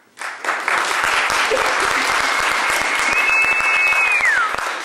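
Audience applauding, starting suddenly just after the end of an answer, with a long whistle held over the clapping that slides down in pitch and stops near the end.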